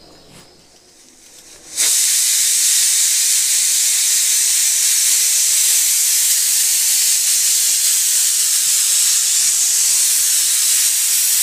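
Stovetop pressure cooker letting off its whistle: steam hisses loudly and steadily from the weighted vent, starting suddenly about two seconds in. This first whistle is the sign that the cooker has reached full pressure and the rice is done.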